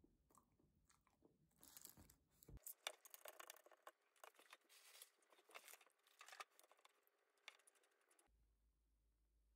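Faint crinkling and clicking of a small plastic food cup being handled and its lid peeled back, in quick irregular bursts that stop about eight seconds in.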